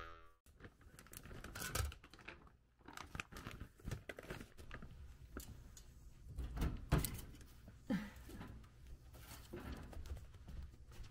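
Faint rustling, scratching and light knocks in a guinea pig's cage as the guinea pig scrabbles over its wooden ramp and bedding and a hand moves about the cage, with a louder knock about seven seconds in.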